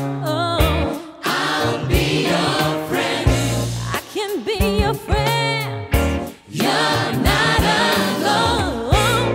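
Gospel choir singing with a backing band of bass and drums, voices held with vibrato.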